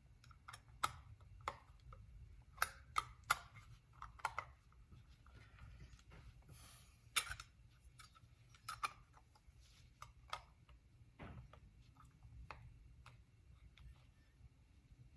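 Irregular light clicks and taps of small metal parts being handled as the cover plate is fitted onto an Andis Master hair clipper, the sharpest about seven seconds in.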